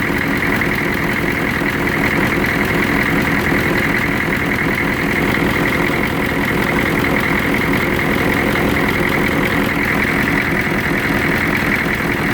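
1993 Chevrolet C/K 2500's 6.2-litre diesel V8 idling steadily with a rough idle and vibration.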